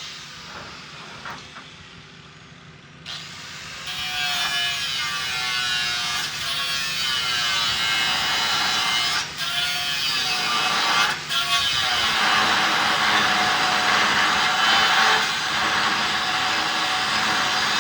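Angle grinder cutting copper rod. It is quieter for the first three seconds, then loud, with the grinder's pitch wavering as the disc works under load. It drops out briefly twice, then settles into a steady harsh hiss of cutting.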